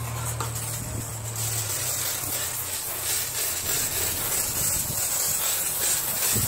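Self-service car wash pressure wand spraying a soapy cleaning solution onto a car, a steady hiss.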